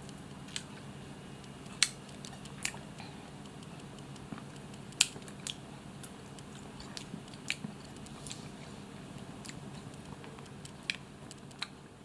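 Close-miked mouth sounds of chewing barbecued chicken: irregular sharp, wet clicks and smacks of lips and tongue, two louder ones at about 2 and 5 seconds in, over a steady low hum.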